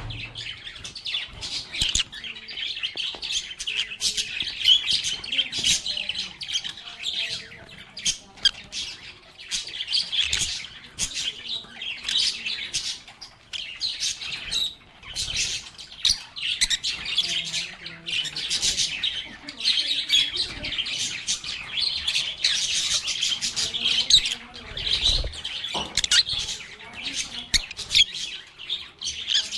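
A flock of pet lovebirds chirping and squawking without pause: a dense chatter of short, high, overlapping calls.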